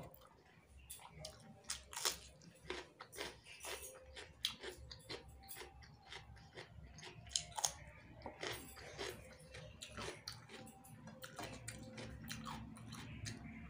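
A person eating rice and vegetables by hand, chewing with frequent small, irregular clicks and crunches, some from raw cucumber slices.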